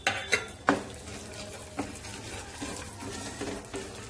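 Chopped nuts and raisins frying in ghee in a nonstick pan, sizzling as a spatula stirs and scrapes them, with a few sharp clacks against the pan in the first couple of seconds.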